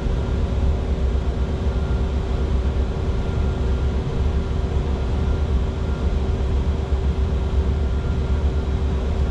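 Steady in-flight cockpit noise of a Bombardier Challenger 605 business jet: a deep rumble of airflow and engines with a steady hum over it.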